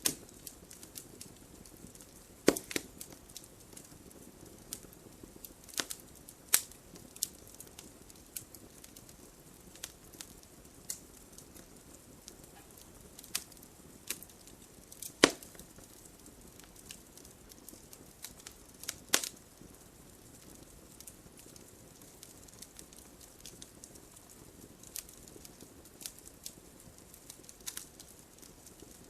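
Wood campfire crackling: a low steady hiss broken by irregular sharp pops and snaps, a few of them much louder than the rest.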